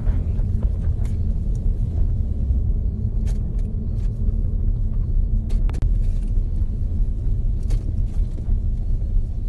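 Steady road and engine rumble inside a moving car's cabin, with a few short clicks and knocks scattered through it.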